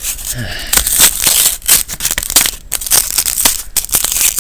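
Foil Pokémon booster pack wrappers crinkling and tearing open in rapid, irregular crackles.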